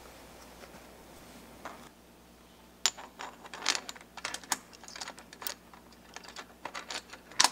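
Quick irregular metallic clicks and taps of a headset press and headset cup parts being handled and fitted together, starting about three seconds in, with the sharpest click near the end.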